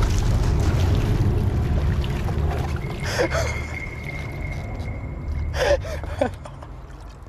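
Water splashing and churning as a small homemade wooden box boat with a tarp hull capsizes and its rider falls into a lake, loudest in the first couple of seconds and then dying down. Two short gasps follow, about three seconds in and near the end.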